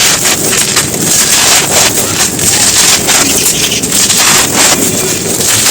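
Dry clods of crumbly earth or cement breaking apart in a dense, continuous crunching and crackling, with many small cracks close together.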